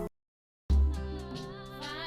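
Background music cuts out into a moment of total silence, then a new piece with heavy bass and a singing voice starts loudly about two-thirds of a second in.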